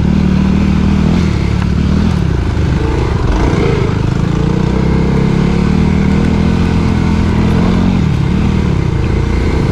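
Dirt bike engine running under throttle, its revs dropping and climbing again about two seconds in and once more near the end.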